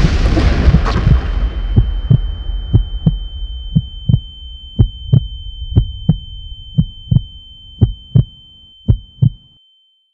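Film sound effect of being stunned by an explosion: the blast's rumble dies away, a steady high ear-ringing tone comes in about a second in, and a heartbeat thuds in double beats about once a second. Everything cuts out just before the end as the character blacks out.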